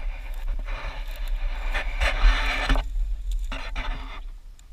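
Gusty wind buffeting the microphone: a constant low rumble under rushing noise that swells and drops every second or so, easing off near the end.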